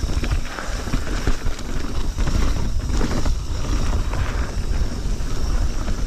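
Mountain bike riding over a rough forest trail: a steady low rumble of tyres and wind on the microphone, with frequent small knocks and rattles from the bike over bumps.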